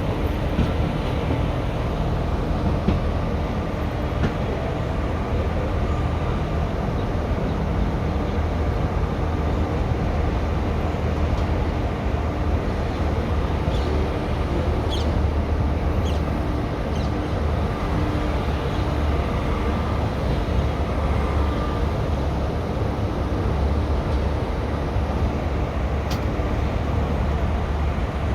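Indian Railways ICF passenger coach running along the track: a steady low rumble of wheels on rail, with a few brief faint high squeaks about halfway through.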